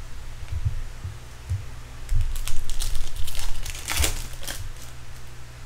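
Foil wrapper of a 2012 Bowman Chrome trading-card pack crinkling as it is handled and torn open: scattered crackles about two seconds in that build to a dense burst near four seconds, then die away. A few soft knocks from handling sit under it.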